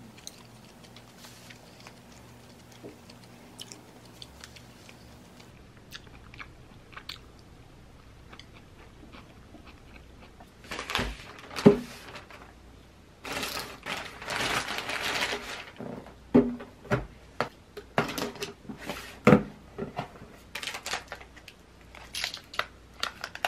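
Faint chewing with small clicks at first. About halfway through, a parcel is unpacked on a tabletop: loud rustling of a plastic delivery bag, several sharp knocks and scrapes of a cardboard box, and the crinkle of plastic-wrapped konjac snack sticks being pulled out.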